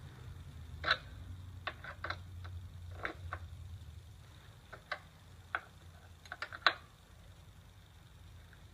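Metal wrenches clinking and ticking against the motorcycle chain adjuster's bolt and nuts as the jam nut is tightened: irregular sharp clicks, with the loudest clink about two-thirds through, then only the odd tick.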